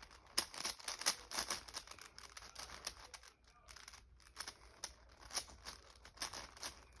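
A YuXin Cloud 5x5 speed cube being turned by hand: quick, irregular clicks and clacks of its plastic layers, with a brief pause about three seconds in.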